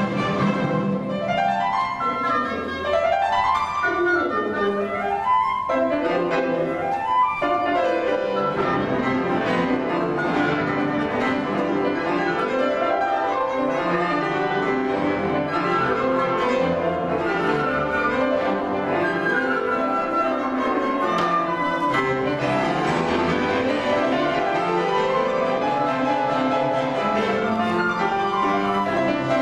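Grand piano playing with a symphony orchestra, in the manner of a piano concerto. In the first several seconds the piano plays quick runs that sweep up and down, then settles into evenly repeating figures, with the orchestra's strings accompanying.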